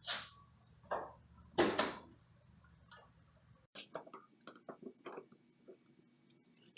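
Knocks and clicks of tools and plumbing parts being handled: three louder knocks in the first two seconds, then after a short pause a run of small, quick clicks and taps.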